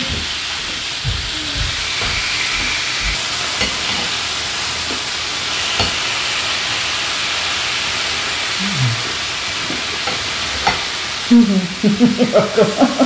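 Thin-sliced beef brisket (usamgyeop) and mushrooms sizzling steadily on a round grill pan over a portable gas stove, with a few light clicks of metal tongs turning the meat. Voices and laughter come in near the end.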